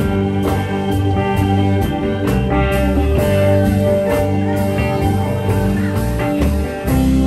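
Live blues-rock band playing an instrumental passage of a slow song: guitar over held chords, with bass and a steady drum beat.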